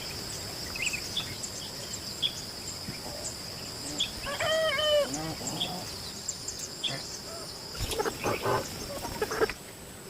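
Countryside ambience: a steady high-pitched insect drone with scattered bird chirps, and a chicken calling briefly about halfway through. A few knocks near the end, as the insect drone stops.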